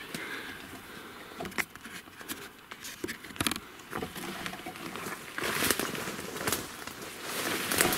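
Rustling and crackling from brush and clothing as someone moves through forest undergrowth, with scattered sharp clicks, getting louder and denser in the second half.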